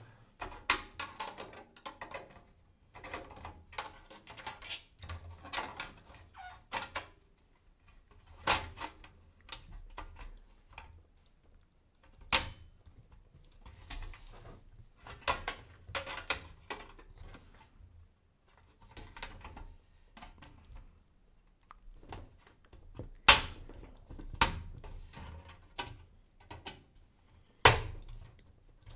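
Irregular clicks, taps and light knocks of computer parts and hardware being handled during PC assembly, with a few louder sharp clicks scattered through.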